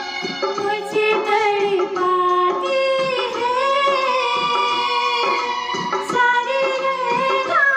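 A woman sings into a handheld microphone over recorded backing music, her voice gliding up and down through a held melody.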